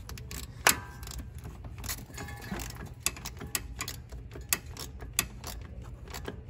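Irregular clicks and clinks of a ratchet wrench tightening the A/C refrigerant line's bolt into the aluminum compressor, snugged only lightly rather than fully torqued.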